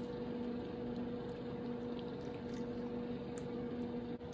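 A steady electrical hum, with faint soft squishing and small ticks as a metal spatula lifts a piece of cheesy baked lasagna out of a foil pan.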